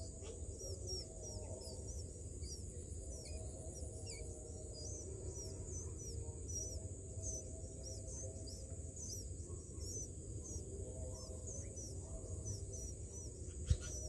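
Bulbul nestlings begging: short, high, upturned chirps repeated two or three times a second. Under them is a steady high hiss and a low rumble, and a sharp knock comes near the end.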